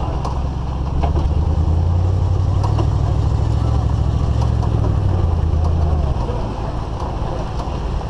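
Low rumble of a GMC Suburban's engine and road noise while towing a loaded trailer on a dirt road, picked up through the camera housing on the rear window, with occasional short knocks and rattles. The rumble swells about a second in and eases off around six seconds.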